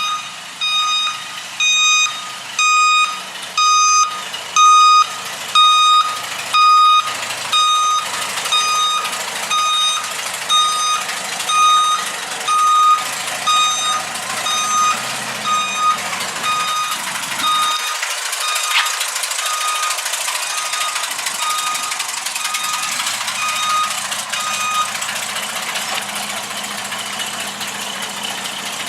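A vehicle's reversing alarm beeping about once a second, a single pitched tone each time, loudest at first, then fading and stopping near the end, over steady engine and street noise.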